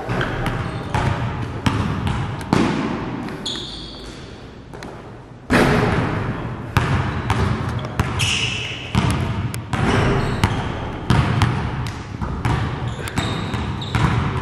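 Basketballs bouncing on a gym floor: a string of uneven thuds, often one or two a second, the loudest about five and a half seconds in, with a few short high squeaks now and then.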